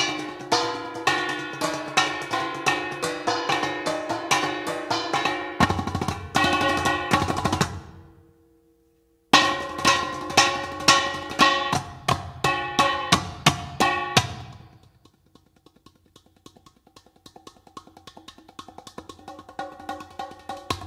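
Percussive music with a steady beat: pitched struck notes over drums. It breaks off about eight seconds in, comes back, then fades before a quieter rhythmic passage slowly builds.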